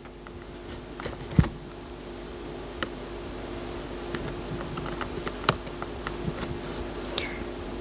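Laptop keyboard typing: scattered key clicks at an irregular pace, with one heavier knock about a second and a half in, over a steady electrical hum.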